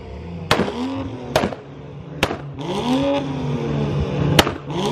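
A BMW 3 Series sedan's engine revving hard and dropping back about three times, with four sharp exhaust cracks among the revs, the loudest near the end: a loud two-step launch-limiter rev.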